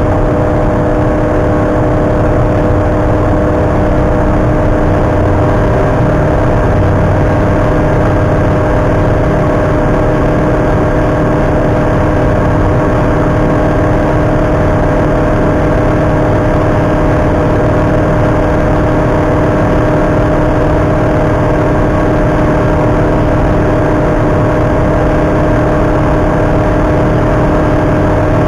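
Light aircraft's Rotax 912 four-cylinder engine and propeller running steadily at takeoff power, heard from inside the cockpit as the plane rolls and climbs out. The engine tone holds constant with no change in pitch.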